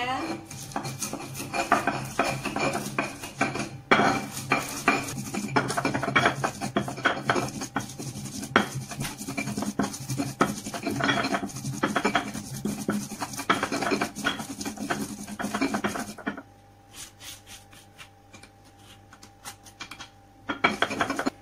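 Stone pestle crushing and grinding red chillies and garlic on a stone mortar (Indonesian ulekan and cobek). Rough scraping and knocking strokes, fast and dense, for about sixteen seconds, then much quieter. Near the end comes a short scrape of a plastic spatula gathering the paste across the stone.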